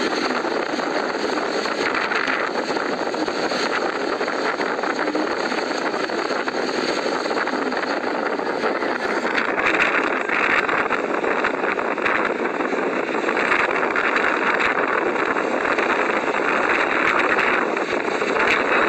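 Steady rush of wind and vehicle noise from riding along a road, with no distinct engine note. About halfway through, the hiss turns more gusty and loses some of its top end.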